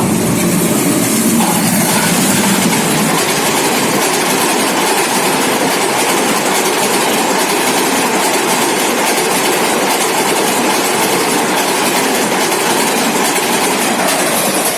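Janshatabdi Express passenger coaches running past at speed on Indian Railways track: a loud, steady rush of wheel and rail noise.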